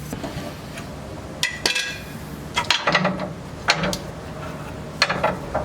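Metal clinks and clicks of hand tools and steel suspension parts being handled, in a few short scattered clusters.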